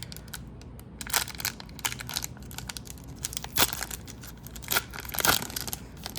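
Hockey card pack wrapper crinkling and tearing as it is pulled open by hand, in a run of short crackles, the loudest about three and a half and five seconds in.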